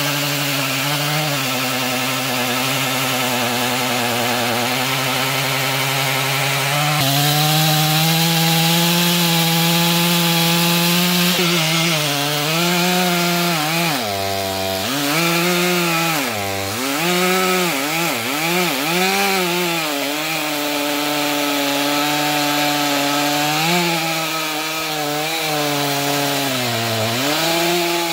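Stihl 461 two-stroke chainsaw running at full throttle, cutting through a thick, dense locust log. Its engine pitch dips and recovers several times in the middle stretch as the chain loads up in the wood.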